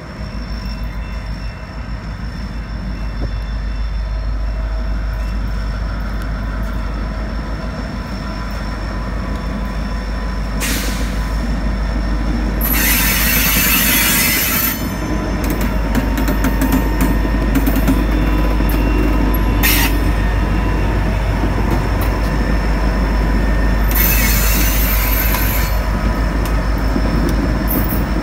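CSX diesel-electric locomotive of a slug set rolling past slowly, its engine running with a steady low rumble. The wheels squeal against the rails in two longer high-pitched stretches, with short squeals just before each.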